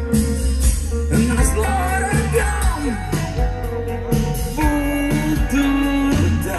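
Live rock band playing: electric bass and drums under a sung vocal line with held and sliding notes.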